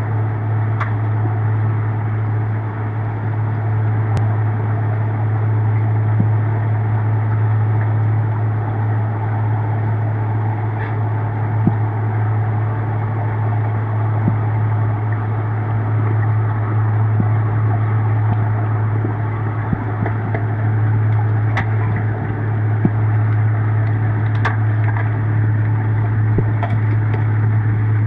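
Steady low hum with a noisy wash, heard underwater in a swimming pool, with a few faint clicks scattered through it.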